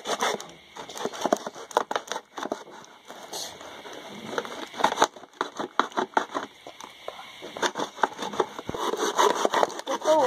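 A thin blade sawing through the wall of a plastic drink bottle: quick, irregular scraping and crackling strokes with short pauses.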